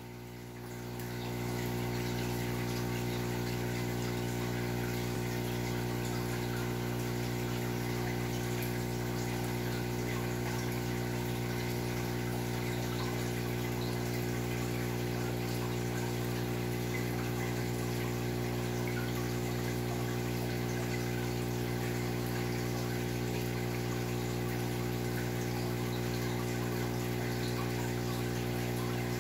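Aquarium pump humming steadily, with water trickling through the tank's circulation. The sound rises to full level over the first second or so.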